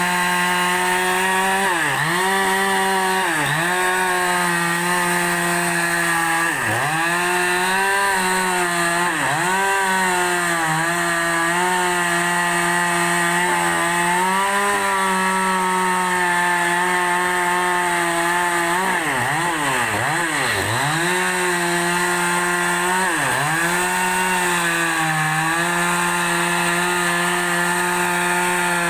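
Two-stroke chainsaw running at high revs while ripping a large log lengthwise. Its engine pitch sags briefly every second or two as the chain loads up in the cut, then recovers, with a cluster of deeper dips near the two-thirds mark.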